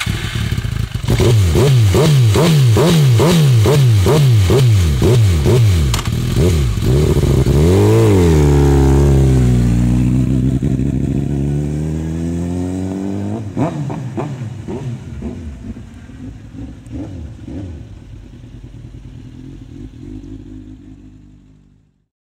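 Sport motorcycle engine revved in quick repeated blips, about two a second, then pulling away hard with a rise in pitch around eight seconds in. After that its note falls and fades steadily as the bike rides off into the distance, with one more short rev along the way.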